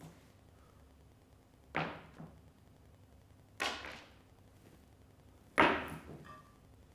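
Three objects dropped one after another onto a wooden stage floor, each landing with a sudden thud and a short rattling tail, about two seconds apart; the last is the loudest.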